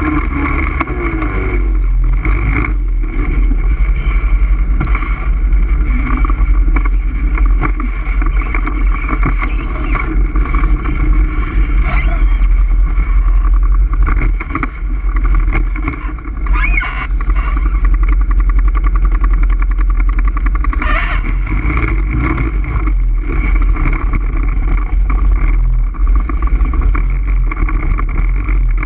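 All-terrain vehicle engine running steadily with a heavy low rumble; the sound dips briefly about halfway through.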